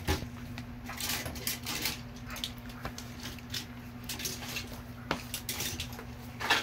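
Scattered rustles, light knocks and clicks of toys and a phone being handled, strongest near the start and just before the end, over a steady low hum.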